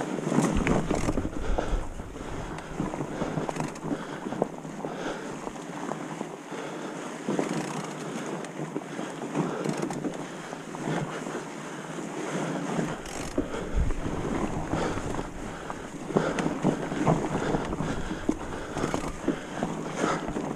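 Mountain bike riding down a leaf-covered dirt singletrack: tyre noise on leaves and dirt, with frequent knocks and rattles from the bike over bumps and roots, and wind noise on the camera microphone.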